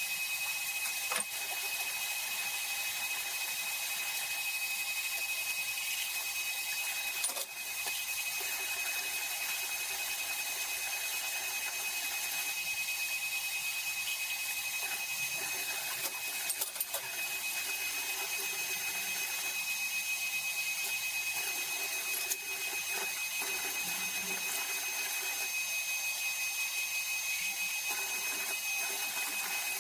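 Kitchen tap running in a steady hiss, with a few short clinks of dishes.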